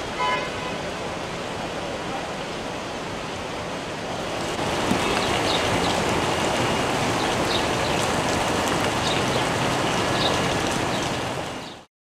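Heavy rain and running floodwater, a steady hiss that grows louder about four seconds in, with faint high chirps over it, cutting off suddenly just before the end.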